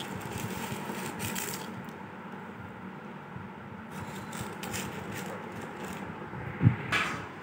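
Small white decorative pebbles rustling and scraping as hands rake and spread them across a plastic plate. A single sharp thump near the end is the loudest sound, followed by a brief scrape.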